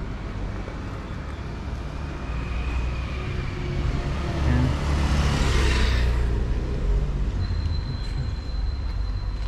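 Street traffic: a motor vehicle passes close by, its noise swelling to a peak about five to six seconds in and then fading, over a steady low rumble. A thin, steady high tone starts near the end.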